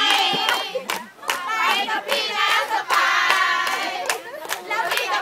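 A crowd claps along fast and repeatedly while high-pitched voices cheer, shout and chant together.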